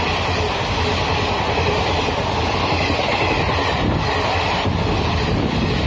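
Howrah Duronto Express passenger coaches passing close by at speed: a loud, steady rush of wheels on rail and moving air.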